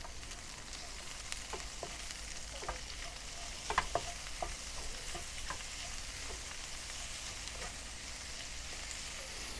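Lamb pieces with onion and dried chilli sizzling in a wok as they are stir-fried, with a wooden spatula scraping and tapping against the pan now and then.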